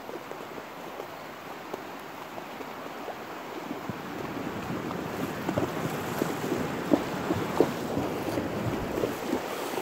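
A horse wading through a shallow, rocky creek, its hooves splashing in the water over the sound of the running stream. The splashing gets louder about halfway through, with sharp, irregular splashes toward the end.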